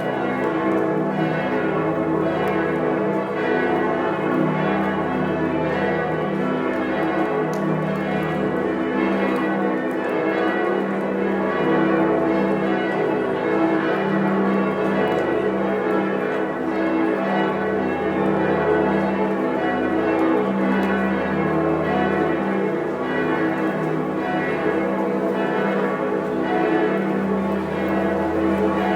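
Many church bells swinging and ringing together in a dense, continuous peal, their tones overlapping. A deep low tone swells and fades every couple of seconds.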